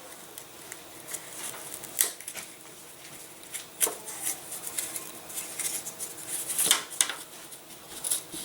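A blade cutting through the model-aircraft wing to free the flaperons: irregular scratching strokes and sharp clicks, the loudest about two, four and nearly seven seconds in.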